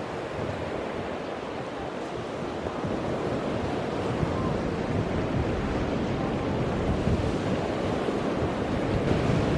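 Sea surf breaking and washing over a pebble shore in a steady rush, with wind buffeting the microphone.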